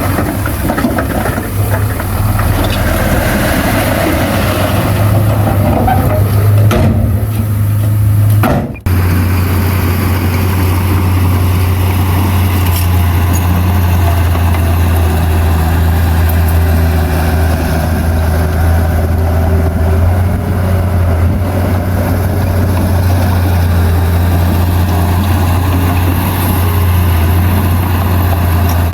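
Heavy diesel engine of earthmoving machinery running steadily with a low hum, with a momentary break about nine seconds in.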